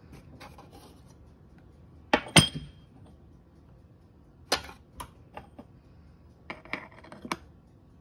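Metal espresso gear being handled: a sharp clink with a brief ring about two seconds in, the loudest sound, followed by lighter clicks and a quick run of taps near the end as a dosing ring is fitted onto a stainless portafilter.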